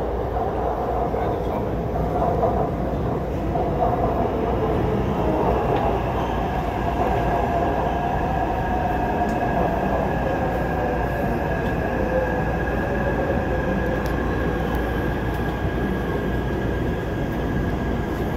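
Taipei MRT metro train running, heard from inside the car: a steady rumble with a motor whine that falls in pitch as the train slows into a station, and a steady higher whine in the second half.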